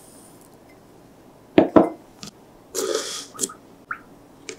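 Small kitchen handling sounds: two sharp knocks in quick succession about one and a half seconds in, then a short rustle and a few light plastic clicks as the whisk head of a meringue maker is fitted into its frosted plastic cup.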